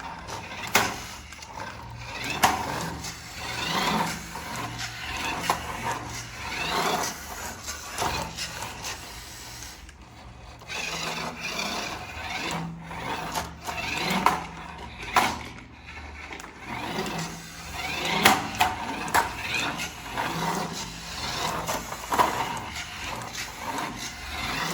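Cardboard and plastic packaging being handled, rubbing and scraping irregularly, with scattered clicks and knocks of plastic parts.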